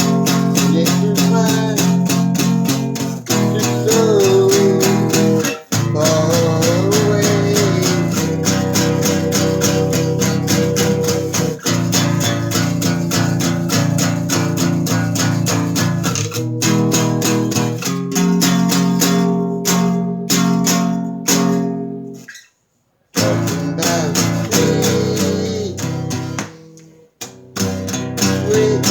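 Guitar strummed steadily in a song, breaking off completely for about half a second about two-thirds of the way through before starting again.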